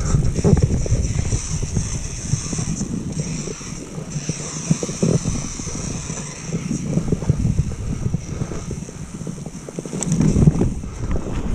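Wind buffeting the microphone over the rumble and rattle of a mountain bike rolling down a trail.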